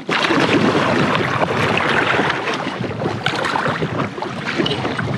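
Water splashing steadily around a kayak as it is paddled, a dense rush of small splashes.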